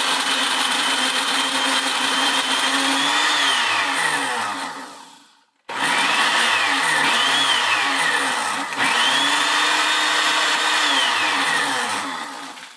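Black+Decker countertop blender motor running while blending blueberries with fruit nectar. It winds down and stops about five seconds in, then starts again; its pitch dips and recovers a few times as the blades work through the fruit, and it winds down near the end.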